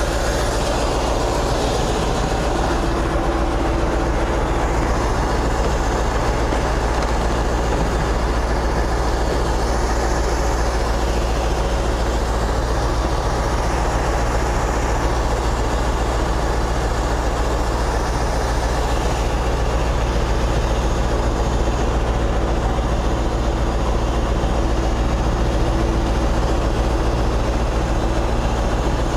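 Scania 143M truck's V8 diesel engine running at a steady speed, a constant low drone with no changes in pitch or level.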